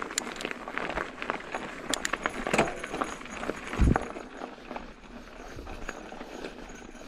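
Mountain bike rolling down a loose gravel road: tyres crunching over stones, with irregular clicks and rattles from the bike over bumps and one heavy thump about four seconds in.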